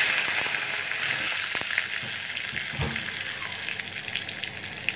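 Ghee tadka of cumin, dried red chillies and freshly added green chillies sizzling hard in a small tempering pan, with scattered crackles. The loud spit of the moist green chillies hitting the hot ghee eases off through the seconds; a soft knock comes about three seconds in.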